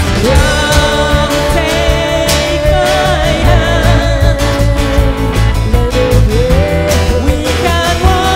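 Live band playing with electric guitar, bass and drums, while singers hold long, wavering notes.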